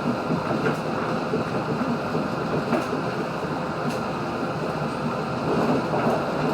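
Steady running noise heard inside a 3100 series diesel railcar as it travels along the line, with a few faint scattered clicks.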